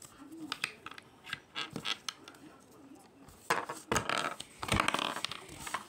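Small plastic Kinder toy pieces being handled and fitted together: a run of light clicks, taps and rattles, busiest from about three and a half seconds in.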